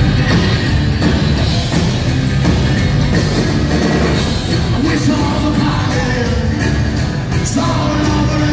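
Live rock band playing a song, acoustic and electric guitars over drums, loud and steady as heard from the crowd in a theatre.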